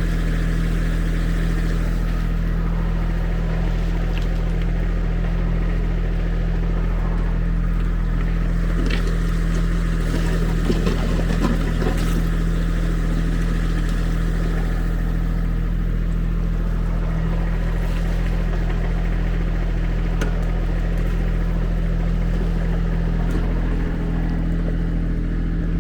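Kubota SSV75 skid steer's diesel engine running steadily while it works a BH70 backhoe, with a few short knocks and scrapes about ten seconds in.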